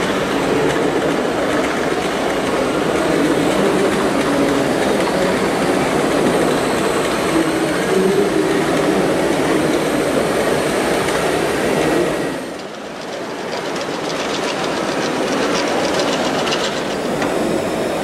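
Radio-controlled 1:8 scale construction models working: a steady mechanical running noise from the RC excavator and Cat D250E articulated dump truck. It dips briefly about twelve seconds in, then goes on with a faint fast rattle.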